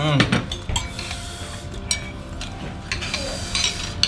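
Metal spoons stirring and scraping in ceramic soup bowls, with scattered light clinks.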